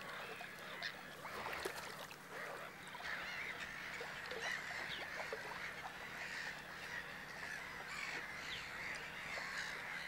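Wetland bird ambience: many short, faint bird calls scattered throughout over a steady background chorus.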